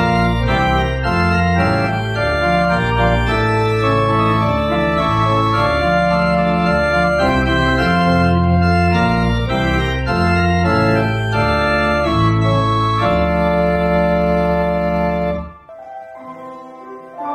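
Church organ playing full, sustained chords over a moving bass line. The piece stops abruptly about 15 seconds in, and softer music begins near the end.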